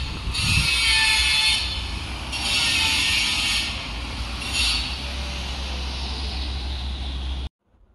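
Outdoor background noise: a steady low rumble with three swells of hiss, the loudest in the first half, cutting off suddenly near the end.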